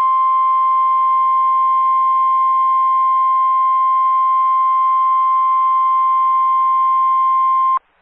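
NOAA Weather Radio warning alarm tone: one loud, steady tone near 1050 Hz that cuts off suddenly just before the end. It signals that a warning message follows, here a severe thunderstorm warning.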